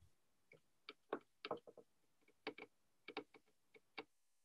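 Faint, uneven clicking of keys being typed on a computer keyboard, about a dozen taps.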